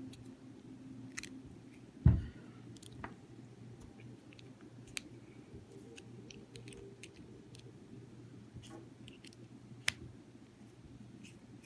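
A small screwdriver working the tiny screws of a Casio G-Shock Mudmaster watch, giving faint scattered clicks and scrapes. One dull knock about two seconds in.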